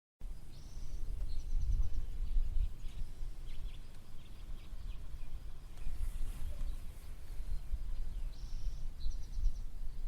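Daytime countryside ambience: a small bird sings a short phrase of quick high notes twice, near the start and again about eight seconds in, with a few fainter chirps in between, over a low, uneven rumble.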